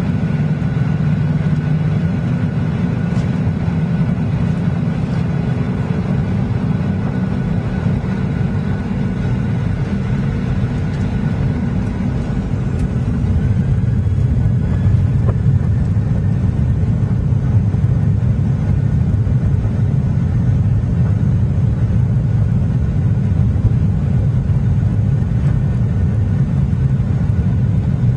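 Cabin noise of a Boeing 737-800 heard from a window seat over the wing: a steady low rumble from its CFM56 jet engines with a faint whine, growing a little louder about halfway through.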